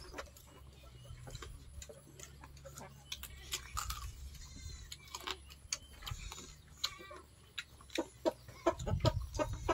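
People eating with their hands: many quick chewing and lip-smacking clicks, with a few short farm-animal calls in the background.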